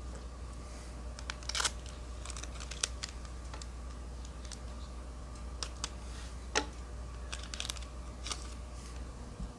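Scattered crinkles and sharp clicks of a foil Pokémon trading-card booster pack being opened and its cards handled, a dozen or so separate rustles and snaps. A low steady hum runs underneath.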